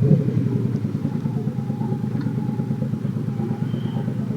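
Motorcycle engine swelling as the throttle opens, then running steadily under way.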